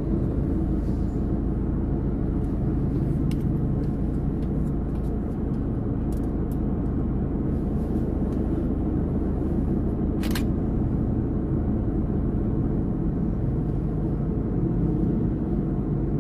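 Street traffic passing close by: the steady rumble of truck, car and motorcycle-tricycle engines and tyres, with a short sharp hiss about ten seconds in.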